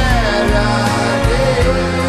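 Background music: a song with a sung voice gliding over instruments and a steady beat.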